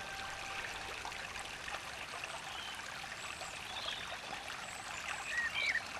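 A small stream trickling and babbling steadily over rocks.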